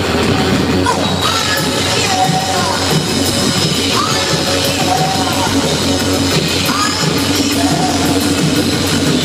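Post-punk rock band playing live through a festival PA: electric guitars, bass and drum kit, with a singer's voice over them.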